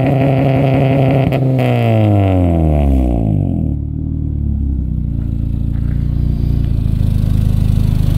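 Honda Civic Si four-cylinder engine with a K-Tuned exhaust, downpipe and cold air intake, held at high revs on its two-step launch limiter. About a second and a half in the revs drop away, and after a few seconds it settles into a steady idle.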